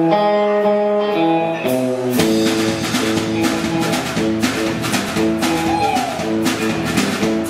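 A live band with guitars, bass and drums playing a country song: a few held guitar notes open, then about two seconds in the drums and bass come in with a steady repeating beat under the guitars.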